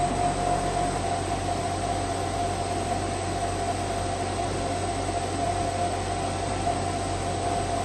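A machine running steadily: an even hiss of noise with a constant whine and a low hum beneath it.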